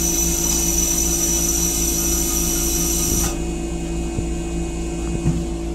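Comet IV rail car's stainless-steel toilet running its flush cycle: a steady high-pitched electric whine that cuts off suddenly about three seconds in. Under it runs the car's steady low hum.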